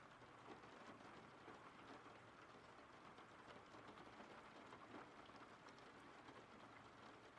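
Faint, steady rain: an even hiss with scattered drop ticks.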